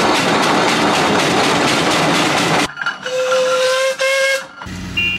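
Steam traction engine letting off a loud, steady hiss of steam that stops abruptly after about two and a half seconds. Then its steam whistle blows twice, two steady pitched blasts. Near the end a low engine running comes in.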